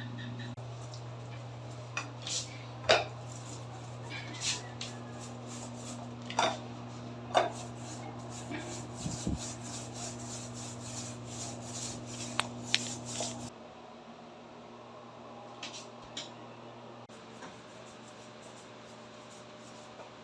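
Paintbrush rubbing and scraping waterproof paint onto a bathroom floor, with occasional knocks and clinks and a quick run of strokes near the middle. A steady low hum underneath stops about two-thirds of the way through.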